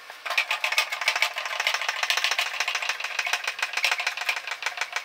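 Small petrol engine running at a steady speed with a fast, even rattle.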